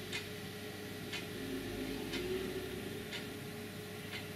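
Quiet room tone with a faint, regular tick about once a second over a low steady hum.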